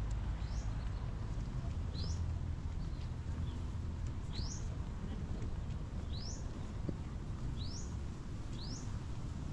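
A bird repeating a short, high, rising chirp six times, one to two seconds apart, over a steady low rumble.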